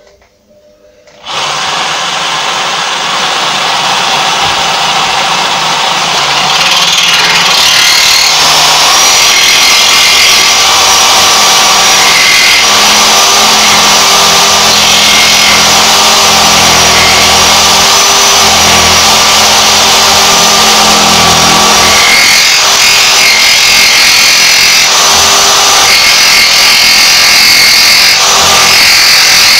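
Cordless jigsaw starting up about a second in and cutting steadily along a scribed line in a painted wooden face frame, trimming it to fit the wall; it gets a little louder after about six seconds.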